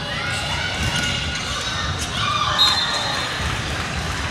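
Volleyball play in a gym: a ball being struck, echoing in the hall, with voices in the background. The loudest hit comes about two and a half seconds in.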